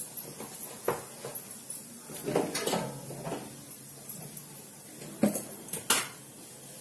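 Plastic kitchen storage containers being handled and lifted from a shelf: a few scattered knocks and clatters, the loudest two a little after five seconds in.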